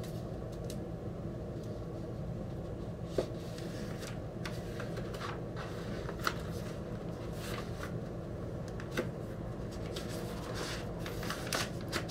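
Cardboard LP record jacket and paper sleeve being handled: light rustling with a few sharp clicks spread through, and busier rustling near the end, over a steady low room hum.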